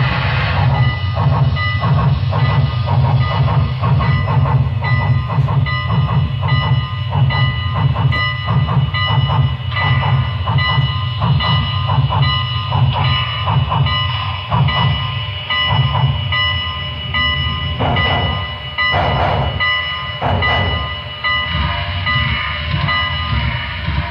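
Sound-equipped HO scale model of a Norfolk & Western class A 2-6-6-4 steam locomotive (Broadway Limited Paragon3) running with a train: a steady rhythm of recorded steam exhaust chuffs from its onboard speaker over a continuous rumble.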